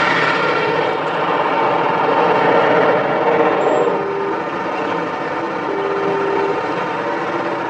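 Heavy truck engine running with road noise as a heavy-haul tractor unit drives past pulling an oversize load.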